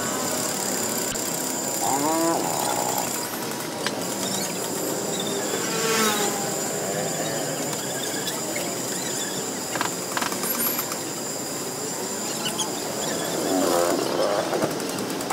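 Street traffic with motorbike engines passing, their pitch gliding up and down a few times, mainly about 2 s, 6 s and 14 s in, over a steady high whine.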